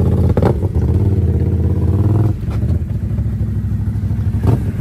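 Can-Am ATV engine running with a steady drone, then easing off to a lower, less even sound a little past two seconds in.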